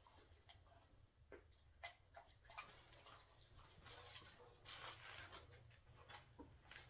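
Near silence: room tone with a low hum, scattered faint clicks and soft rustling.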